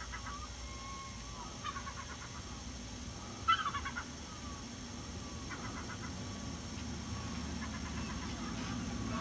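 Scattered short bird calls, some gliding downward in pitch, the loudest about three and a half seconds in, over a low steady background hum.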